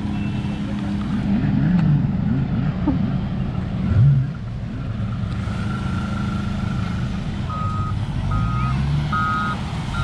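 Wheel loader's diesel engine running and revving as it moves across the sand. About three-quarters of the way through, its reversing alarm starts beeping steadily, a little more than one beep a second, as it backs its launching basket into the water.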